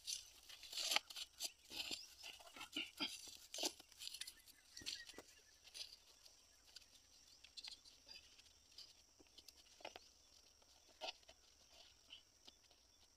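Faint, irregular clicks, crackles and rustles of hands working at a pump set's casing and its plastic lay-flat hose, denser in the first few seconds, over a faint steady high hiss; no engine is running.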